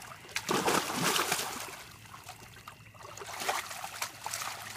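Shallow river water splashing and trickling as a large catfish is lowered back in by hand and released, loudest in the first second, with smaller splashes again a few seconds later.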